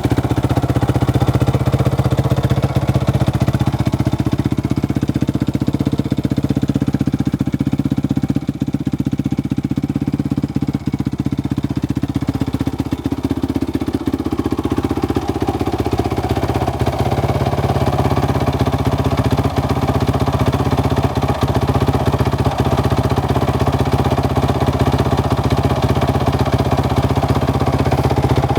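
2007 Honda CRF450R's 450 cc single-cylinder four-stroke engine running at a steady idle shortly after a cold start, its note shifting a little about halfway through.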